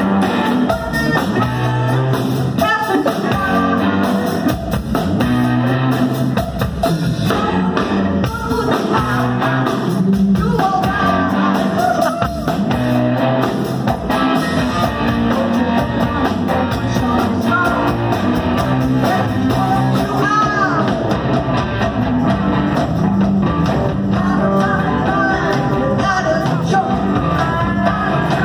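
A live rock band playing: electric guitars, one a Zemaitis pearl-front, over a drum kit, with singing.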